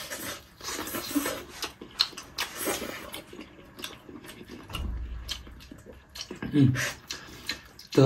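Two people chewing soft braised meat with wet smacking and lip clicks, with a short hummed voice sound near the end.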